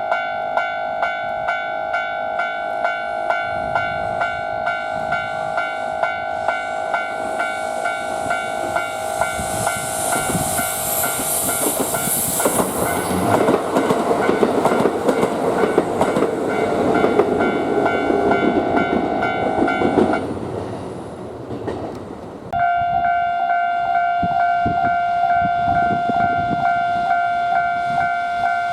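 Railway level-crossing warning bell ringing in a steady rhythm while a train passes over the crossing, loudest in the middle. The bell stops about 20 seconds in and starts again about two seconds later, now with a single tone.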